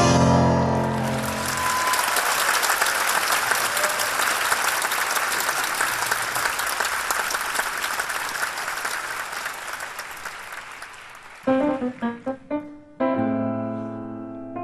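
Theatre audience applauding as the tango band's last chord dies away, the applause slowly fading over about ten seconds. Near the end a grand piano starts a solo with a few separated notes, then held chords.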